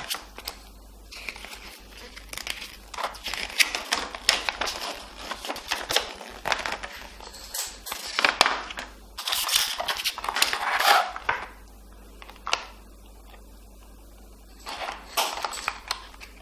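Hands handling the microphone and its packaging: irregular crinkling, rustling and small clicks, with a quiet stretch of about two seconds near the end.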